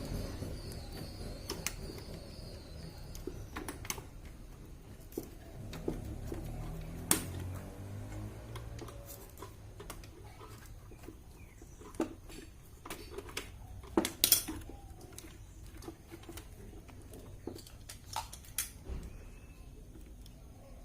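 Scattered sharp clicks and knocks as a UPS battery backup's circuit board is pressed, unclipped and lifted out of its case. The loudest cluster of knocks comes about fourteen seconds in.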